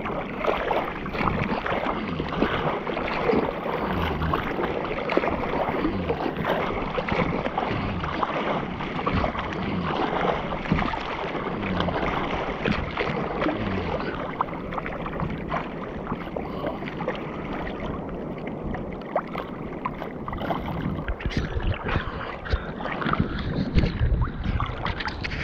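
Choppy sea water sloshing and splashing right against a waterproof camera at the surface, an uneven run of small splashes and lapping.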